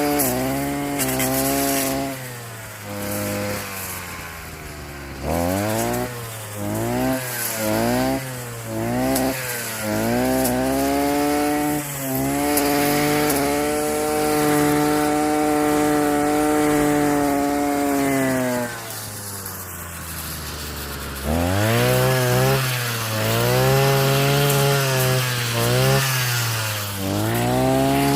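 Petrol weed whacker fitted with a metal saw blade, cutting through bush and tree stumps. The engine revs up and drops back again and again, holds at steady full throttle for several seconds in the middle, and falls to a low idle twice.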